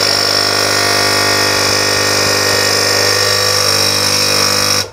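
The milk pump and the water pump of an ECM Veronica PLUS coffee machine running together with a steady loud buzz, then cutting off suddenly at the very end. The pumps are running when they should not, because the machine reports its front panel open; the repairer says something is plainly wrong with the microcontroller.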